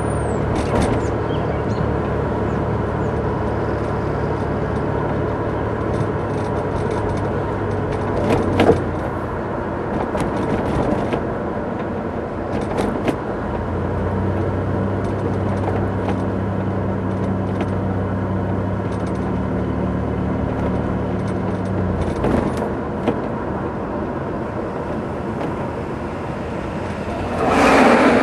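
Steady engine hum and road noise heard from inside a moving vehicle, with the engine's tone shifting a couple of times. Short knocks and rattles come as it goes over bumps on a rough road, and a louder rushing swell rises near the end.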